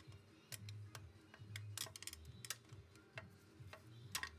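Metal tool clicking and scraping against steel parts inside a 4L60E automatic transmission case: a string of irregular light clicks and clinks. Faint background music underneath.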